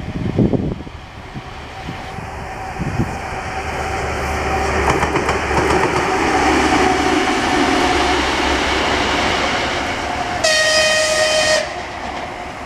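TEM14 diesel shunting locomotive passing close by, its diesel engine and wheels on the rails growing louder to a peak about six seconds in and easing off as it moves away. About ten seconds in it gives one horn blast, a steady high tone about a second long.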